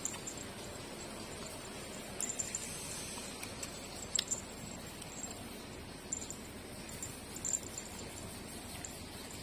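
Puppies nursing from their mother, with scattered small clicks and rustling over a steady background hiss.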